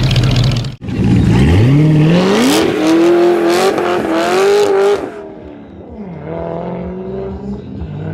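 A Chevrolet Corvette C6's V8 accelerating hard from a standing start. The engine note climbs steeply through the gears, with brief dips at the upshifts. About five seconds in it drops away suddenly and carries on quieter and steadier as the car speeds off. Before that, in the first second, a C1 Corvette idles steadily until it is cut off abruptly.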